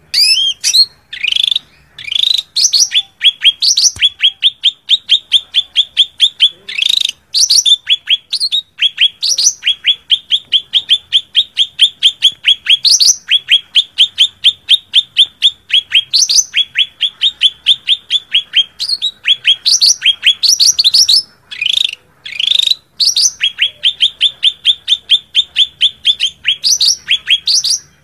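Cucak ranting (a leafbird) singing its fighting song, the call that challenges a rival: long runs of fast, short repeated chirps, broken every few seconds by louder rising notes and higher trills.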